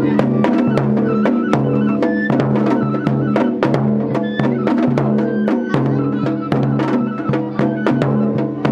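Japanese festival music (matsuri-bayashi) with fast, dense drum strokes and sharp wooden clicks over a steady low ringing tone.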